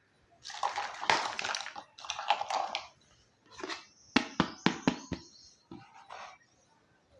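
Handling of a small plastic toy kitchen set: rustling for a few seconds, then a quick run of about six sharp clicks as pieces are set down and knocked together.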